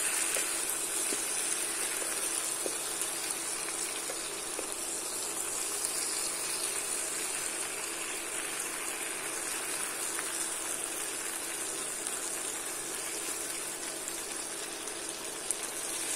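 Sheep head pieces sizzling steadily in oil and curry spice paste in a frying pan as they are stirred with a wooden spoon.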